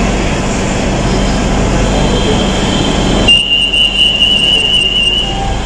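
Inside a BTS Skytrain car: a steady rumble and hiss of the train. About three seconds in, the rumble drops and a single high steady tone sounds for about two seconds.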